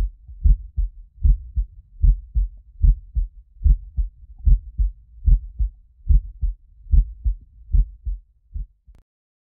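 Low, deep thumping in pairs like a heartbeat, about one pair every 0.8 seconds, stopping about nine seconds in.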